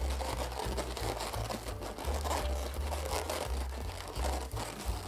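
Inflated latex twisting balloons rubbing and squeaking against each other as hands press and squeeze a balloon flower into shape, with irregular crinkling.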